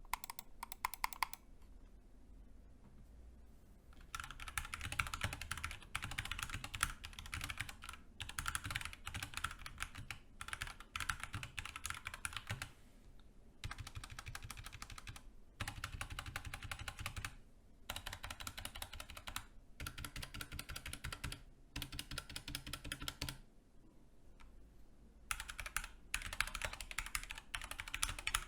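Sound test of a Kemove DK61 60% mechanical keyboard with lubed Gateron Brown switches, O-rings under the keycaps and tape and PE-foam mods: fast typing, runs of key clicks lasting a second or three, broken by short pauses.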